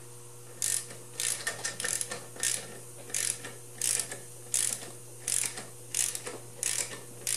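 Click-type torque wrench's ratchet head ratcheting as nuts on a VW transmission case are run down: short bursts of ratchet clicking on each back-swing, about every two-thirds of a second.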